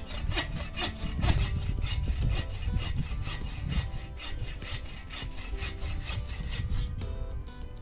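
Hand saw cutting through a green spruce branch, in steady back-and-forth strokes several times a second.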